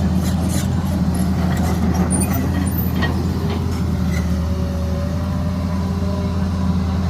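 A heavy diesel machine engine running at a steady speed, with a light knock about three seconds in.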